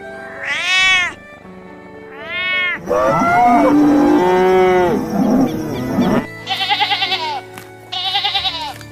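Farm animal calls over soft background music: two short rising-and-falling calls, then a long cow moo of about three seconds, then two wavering bleats near the end.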